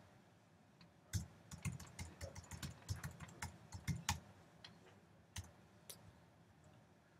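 Typing on a computer keyboard: a quick run of keystrokes starting about a second in and lasting some three seconds, then two more single clicks a little later. Faint.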